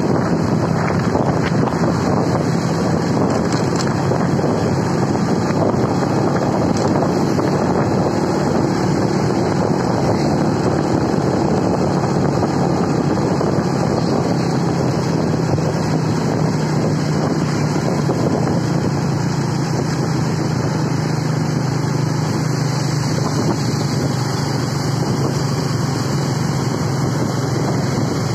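Steady drone of vehicle engines at road speed, with wind noise on the microphone.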